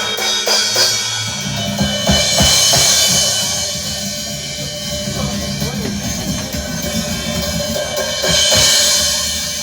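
A drum kit played during a sound check: drum hits throughout, with cymbal crashes about two seconds in and again near the end.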